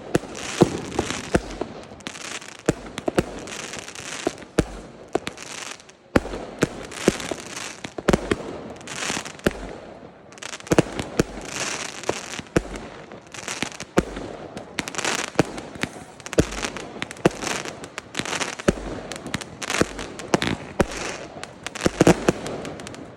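Fireworks going off: a dense, unbroken run of sharp bangs and crackles, several a second.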